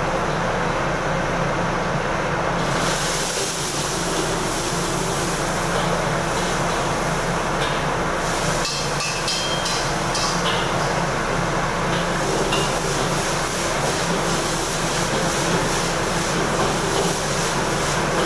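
Steady roar of a commercial wok station, its gas burners and extractor fan running with a constant hum. A metal ladle clanks and scrapes against the wok during stir-frying, and a sizzling hiss grows brighter about three seconds in.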